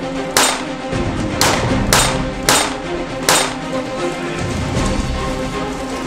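Background music, with five sharp pistol shots over it in the first three and a half seconds, the middle three about half a second apart.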